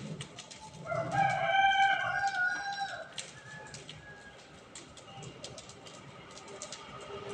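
A rooster crows once, about a second in, a call of about two seconds. Throughout, the pile of burning straw crackles with scattered pops.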